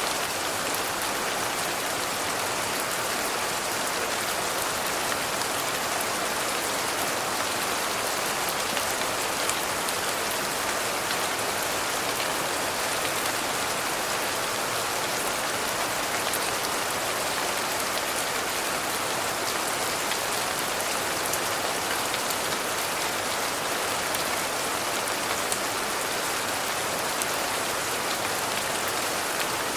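Steady rain falling, an even hiss with scattered droplet ticks that does not change.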